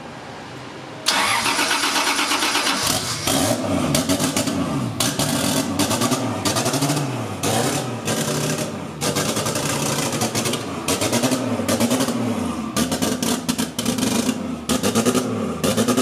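Toyota 2JZ-GTE single-turbo straight-six catching about a second in, then revved up and down again and again.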